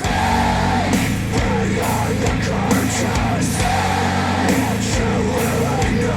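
Heavy rock music with vocals, drums and distorted guitar, played back through Focal Chora 806 bookshelf speakers driven by a NAD C 338 amplifier. A loud, dense passage comes in suddenly at the start, right after a stretch of distorted guitar alone.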